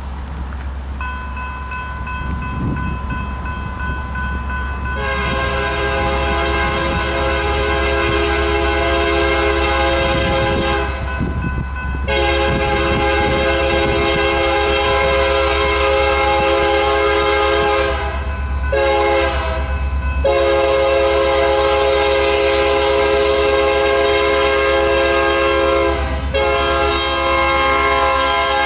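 Union Pacific SD70M's older Nathan K3HA three-chime air horn sounding the long, long, short, long grade-crossing signal, then starting another long blast near the end. It is faint at first and turns loud about five seconds in as the train approaches.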